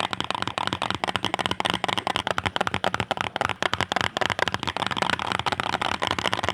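Fast typing on a custom-built Wooting 60 V2 mechanical keyboard with Ocean Star switches and a foam-dampened build, a dense run of muted keystroke clacks.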